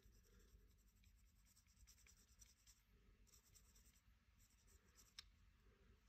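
Very faint scratching of a whiteboard marker's felt tip being worked over the painted body of a 1:64 die-cast model car, with a few light ticks and one small click about five seconds in.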